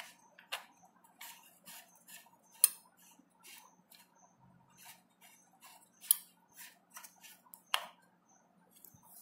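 Temperature-control dial of a dry electric iron being turned on its fitting, making a string of irregular light clicks with a few sharper ones.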